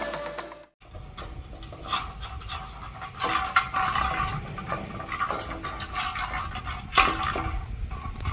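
Dog eating from a metal bowl on concrete: irregular clinks and knocks of the bowl as it feeds, the loudest about three and a half seconds in and again near seven seconds. The tail of some music fades out in the first second.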